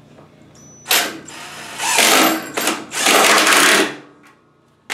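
Cordless drill driving a screw through a metal bracket into a wooden block, running in three bursts, the second and third longer. A short knock near the end.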